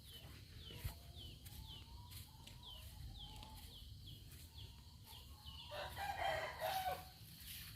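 A rooster crowing once near the end, a drawn-out call louder than the rest. Before it, a run of short, high, falling chirps repeats two or three times a second.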